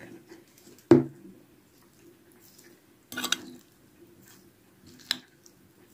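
Kitchen handling sounds while seasoning a salad in a glass bowl: a sharp knock about a second in, a short burst of noise about three seconds in, and a click near the end.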